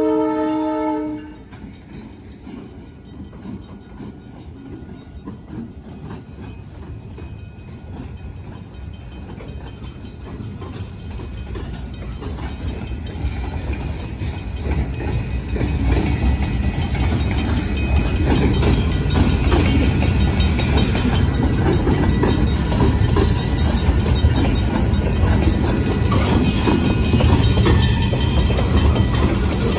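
A freight locomotive's horn chord cuts off about a second in. Then the train's cars roll past over the crossing, a rumble and clatter of steel wheels on rail that grows louder and then holds. The crossing's mechanical bell rings along with it.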